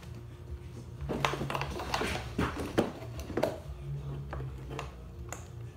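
Hand handling of snowmobile plastic trim and gauge cluster clips being worked loose: a run of short sharp plastic clicks and knocks from about a second in, thinning out after the middle, over a low hum.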